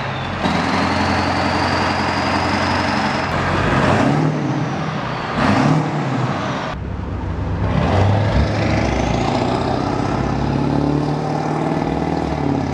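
Ford 7.3 Powerstroke V8 turbo-diesel running and accelerating through a full 4-inch exhaust, with a thin rising turbo whistle from the billet Wicked Wheel compressor wheel, in several short cut-together clips.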